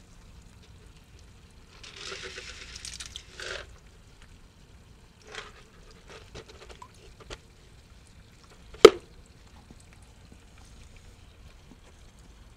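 Water splashing as Japanese pond turtles feed on food floating at the surface: a longer splash of about a second and a half, then a few small splashes. One sharp, loud click about two-thirds of the way through is the loudest sound.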